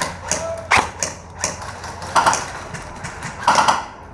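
Airsoft guns firing scattered sharp single shots, with a louder quick cluster of shots near the end.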